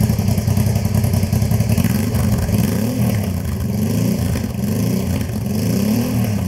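Honda Transalp's V-twin engine running through custom header pipes and a GPR silencer, at a brisk idle and then revved in several quick throttle blips from about two seconds in, each rising and falling in pitch.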